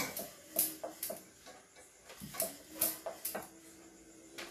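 A handful of separate light clinks and knocks of cooking utensils on a gas stove (a wire roti rack and a flat griddle) as rotis are cooked.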